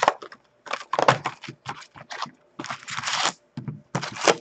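Crinkling, tearing and crackling of wrapper and cardboard packaging as a box of hockey trading cards is opened by hand: a run of short, irregular rustles, with a longer one about three seconds in.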